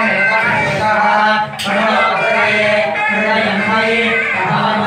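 Male voice singing over a steady low drone, unbroken throughout.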